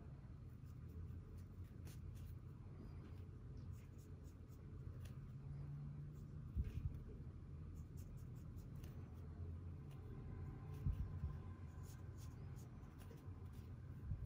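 Faint scratching and light ticks of an ink brush pen's bristle tip stroking and dabbing across MÅLA roll drawing paper, over a low steady hum. Two dull bumps stand out, about halfway through and again near three quarters of the way.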